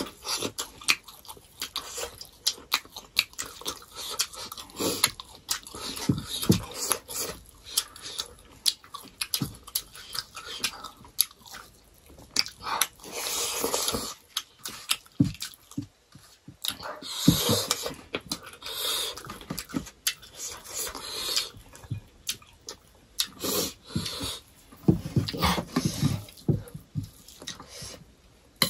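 Close-up eating sounds of two people eating rice and pork curry with their hands: irregular wet chewing and lip smacking, with fingers mixing rice on steel plates.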